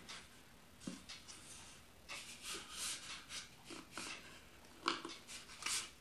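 Faint rubbing and soft clicks of hands turning a plastic microwave tea kettle, in short irregular bursts, the loudest about five seconds in and again near the end.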